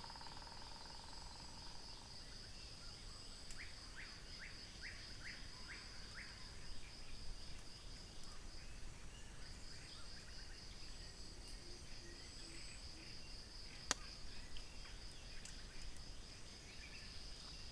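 Faint, steady high-pitched pulsing trill of insects, with a short break about halfway through. A few seconds in, a bird gives a quick run of about seven short, falling calls, and there is a single sharp click near the end.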